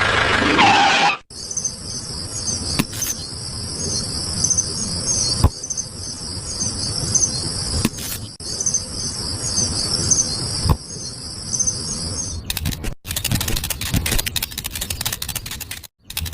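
Crickets chirping in a steady, evenly pulsing high trill over a low, uneven rumble. Near the end it cuts to a fast, dense rattling of clicks.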